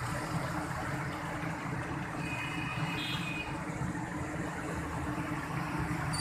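Motorcycle engines running as they ride through a flooded street, over a steady wash of rain and churning water. A brief high-pitched tone sounds about two to three seconds in.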